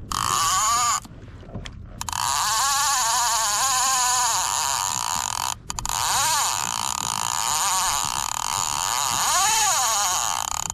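Conventional fishing reel being cranked fast to bring line in: a loud whirring whine of the gears and line that wavers up and down in pitch, stopping for about a second near the start and then resuming.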